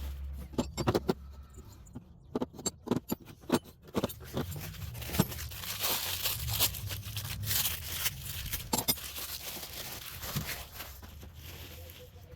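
Unpacking a shipping box: packing material tearing, scraping and rustling, with many sharp clicks and knocks as items are handled, most of them in the first few seconds.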